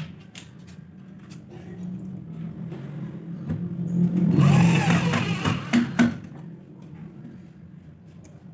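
A 12V cordless drill/driver drives a screw through a pocket hole in a plywood panel into a wooden frame. The motor's whir builds and is loudest around the middle as the screw seats, followed by a few sharp clicks.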